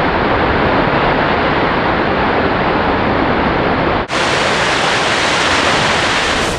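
Steady rushing noise of blasted limestone sliding and tumbling down a quarry face just after the blast. About four seconds in it cuts sharply to another stretch of the same even rushing noise.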